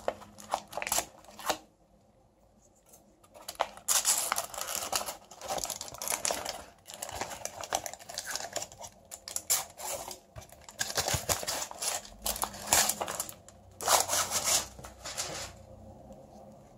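Aluminium foil and the paper wrapper of a chocolate bar crinkling and rustling as they are peeled open by hand. A few crackles at the start, a pause of about two seconds, then near-continuous crinkling that dies away near the end.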